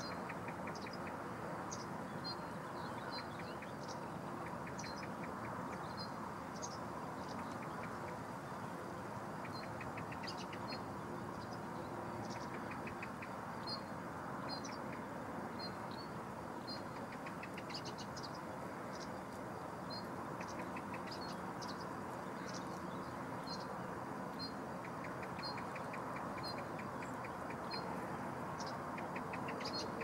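Wild birds calling: short high chirps every second or so, mixed with brief rapid trills, over a steady background din.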